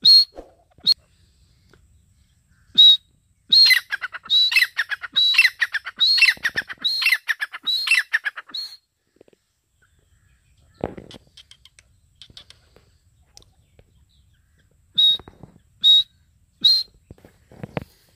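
Grey francolin calling: a few single sharp notes, then a rapid run of repeated calls lasting about five seconds. After a pause come three more single notes near the end. A couple of dull low knocks fall in the pause and near the end.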